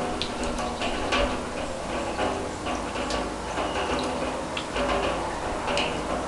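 Rain dripping and falling onto a steel drum: irregular sharp ticks and taps over a steady patter of rain.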